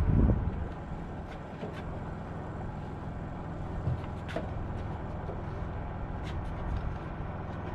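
A steady low motor hum, with a few light clicks scattered through it.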